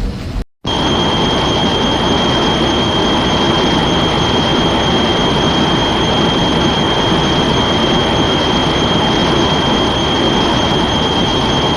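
Kaiju monster roar sound effect: one long, steady, noisy screech with a constant high whistling tone. It starts abruptly after a short silence and holds for about eleven seconds.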